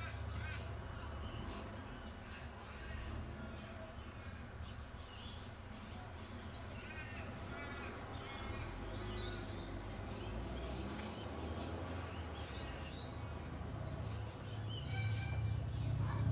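Outdoor birds chirping and calling, many short, separate calls, over a steady low rumble that grows louder near the end.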